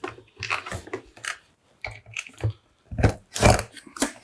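Irregular light clicks and taps of a screw and screwdriver being handled and fitted against the plastic body of a vacuum cleaner.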